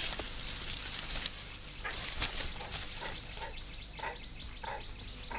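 Rustling through the first half, then a run of short animal calls, roughly two a second.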